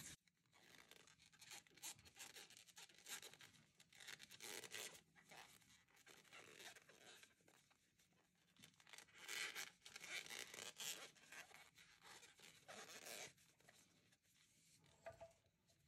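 Faint, scattered rustling of a crochet hook drawing thick t-shirt yarn through tight stitches, a little louder a little over halfway through.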